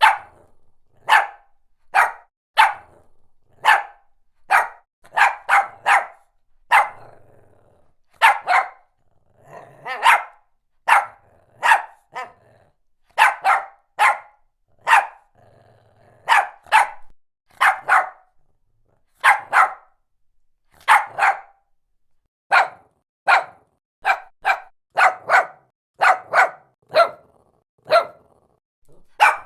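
A Shih Tzu barking over and over in short single barks, a bit more than one a second. Some come in quick runs of two or three, with a few pauses of about a second.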